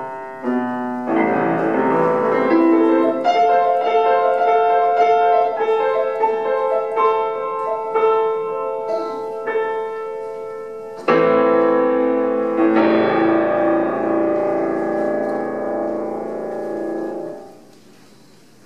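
Solo piano playing the closing bars of a classical piece: a run of notes, then a loud final chord about eleven seconds in that rings on and dies away a few seconds before the end.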